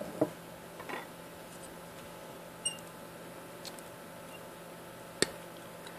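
A few small handling clicks, then a single sharp snip a little after five seconds in as diagonal cutters clip a wire end on the circuit board, over a steady low hum.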